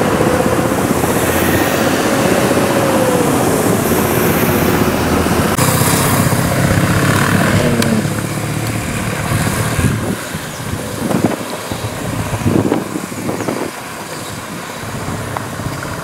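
Road traffic engines. A loud, steady vehicle engine drone fills the first half, its pitch sliding down as it passes. About eight seconds in it changes to quieter, uneven motorcycle and traffic engine noise with a few short surges.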